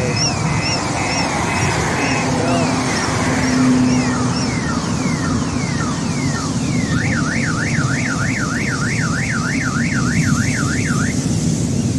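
A car alarm cycling through its tones: rapid repeated chirps, then a series of falling sweeps, then about seven seconds in a fast up-and-down warble that stops about eleven seconds in. A steady rumble of road noise runs underneath.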